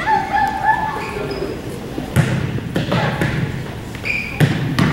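A basketball bouncing on a gym floor, about four thuds in the second half, over the voices of players and spectators in the gym.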